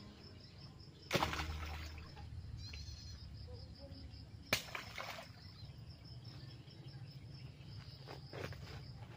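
Pieces of jackfruit rind and scraps thrown into a pond land with splashes: a loud one about a second in, another about four and a half seconds in, and smaller ones near the end. Crickets chirp steadily throughout.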